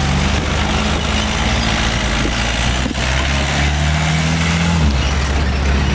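An old camper van's engine runs as the van drives past over cobblestones, with a dense rumble of tyres on the stones. Its engine note climbs steadily for a couple of seconds and then falls back near the end.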